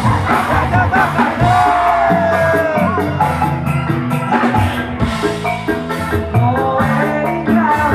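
Live dangdut band music played loud through a stage PA: drum kit, keyboard and guitar, with a male singer's voice carrying the melody.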